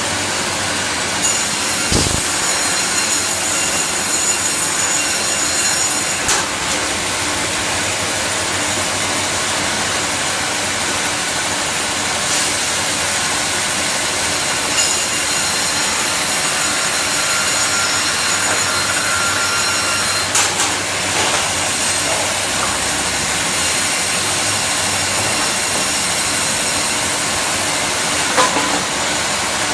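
CNC sawmill line running and cutting logs: a steady, loud machine noise with a high thin whine in parts, broken by a few sharp knocks.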